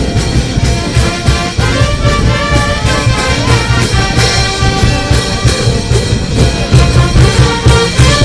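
Brass band playing live: trumpets and trombones carry a melody over a steady beat of bass drum and cymbals.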